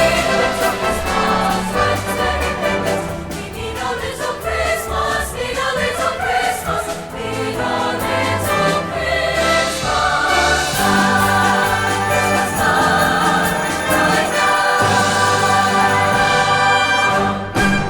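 Choir singing with a full symphony orchestra, loud and sustained; the music stops near the end.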